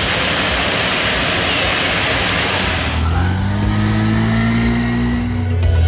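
Loud rushing of fast-flowing floodwater. About three seconds in it changes to a motor scooter's engine running, its pitch rising a little as it rides through water on a flooded street.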